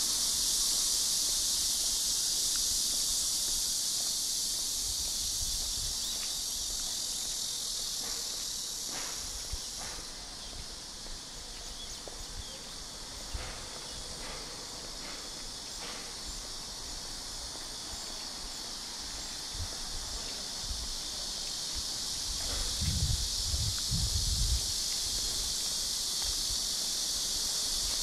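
A steady, high chorus of cicadas buzzing in the roadside and park trees. A short low rumble comes in about three-quarters of the way through.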